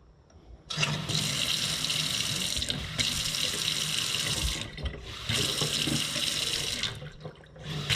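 Single-handle kitchen faucet turned on about a second in, its stream running steadily into a stainless steel sink, with two brief dips in the flow. This is the full flow restored after debris was cleared from the blocked aerator.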